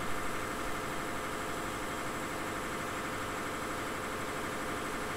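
Steady, even mechanical drone of the fuel system being run to prime a newly fitted diesel fuel line and spin-on filter housing, pushing fuel up toward an open fitting that has not yet bled through.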